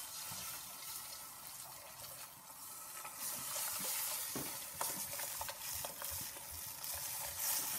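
Beer poured from a bottle into a hot stainless steel pot, sizzling steadily as it hits the pan juices, with a few light knocks partway through.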